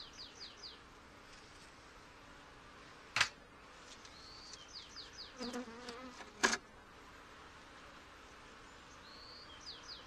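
Honey bees buzzing steadily around an opened hive, with two sharp knocks a few seconds apart as the frames are worked with a hive tool. A bird sings a short phrase of quick falling notes twice in the background.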